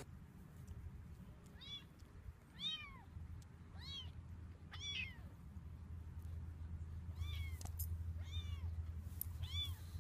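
A kitten mewing again and again: seven short, high-pitched mews, each rising then falling in pitch, about a second apart with a longer gap midway.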